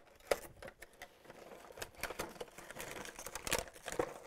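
Utility knife cutting packing tape on a cardboard toy box, then the box being opened: a run of small clicks, scrapes and crinkles of cardboard and plastic packaging.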